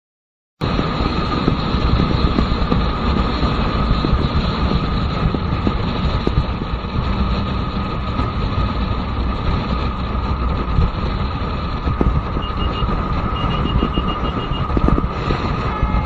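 Motorcycle running steadily at highway speed, with a constant rush of wind over the camera microphone and a steady whine. It cuts in suddenly about half a second in.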